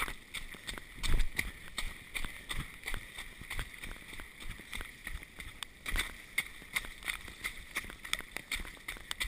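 A runner's footfalls on a wet, muddy dirt trail, about three strides a second, with the thump and rattle of a handheld camera jolting at each step.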